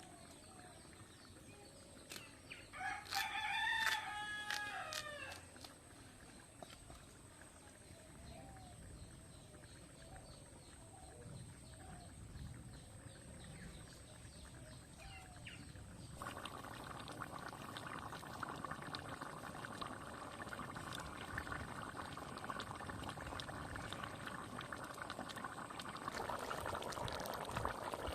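A rooster crows once a few seconds in, one long call that drops in pitch at the end, over soft clucking. About halfway through, a steady hiss of cooking starts and grows louder near the end, typical of a pot of curry boiling hard.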